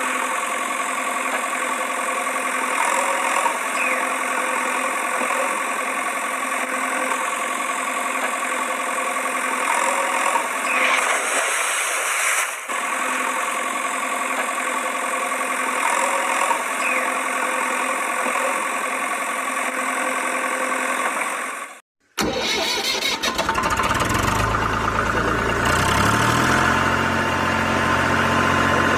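Engine sound effect: a steady engine running, with a brief dip about 11 s in. After a short cut about 22 s in, a deeper engine takes over, idling and then rising in pitch a few seconds later.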